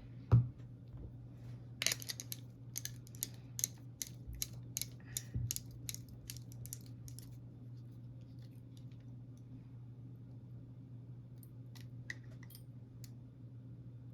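Small metal clicks and taps of an Abus 72/40 brass padlock being handled as its retaining screw is pushed in during reassembly: a single knock at the start, a quick run of clicks for several seconds, then a few more clicks near the end. A faint steady low hum lies underneath.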